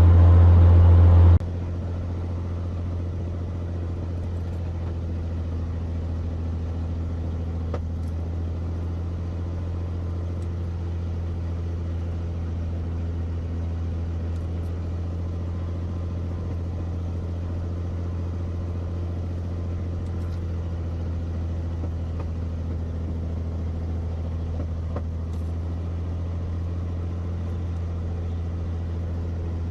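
Cirrus SR22's six-cylinder piston engine running steadily with a low drone. It drops suddenly to a lower power about a second and a half in and holds there. The engine has a lean #2 cylinder, caused by a missing fuel-injector gasket.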